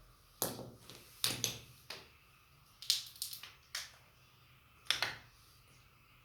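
A series of sharp clicks and clatters of small hard objects being handled on a workbench, about six bursts, some in quick runs of two or three.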